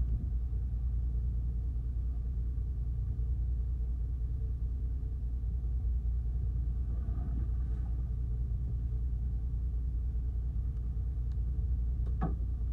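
Small fishing boat's engine idling with a steady low rumble and hum. A short knock comes near the end.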